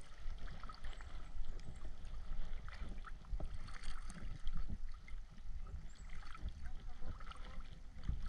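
Water sloshing and moving around the microphone, with a steady low rumble and many scattered small clicks and crackles.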